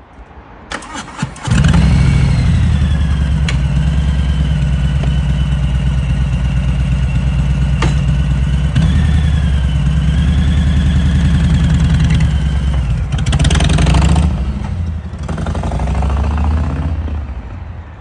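Harley-Davidson V-twin motorcycle engine started after a few clicks, catching about a second and a half in and idling steadily. Near the end it revs up as the bike pulls away, and the sound fades.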